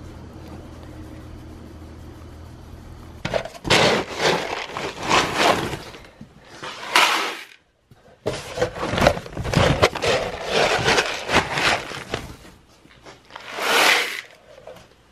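Pellet feed being scooped out of a paper feed sack and poured into a plastic bucket: rustling and scraping of the sack and scoop, with a short rush of pellets near the end. Before that comes a steady low hum, then a stretch of loud rustling and scraping.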